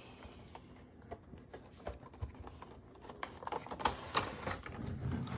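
Cardboard Funko Pop box and its clear plastic insert being handled and opened: light, scattered clicks and taps, sparse at first and more frequent from about halfway through as the insert is worked out of the box.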